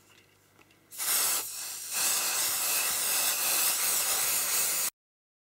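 Aerosol can of spray adhesive hissing as it sprays onto fabric: a short burst about a second in, then a longer steady spray that cuts off suddenly near the end.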